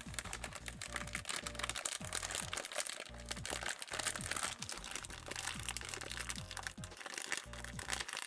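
Silver foil pouch crinkling and crackling as hands work at tearing it open, over background music with a steady beat.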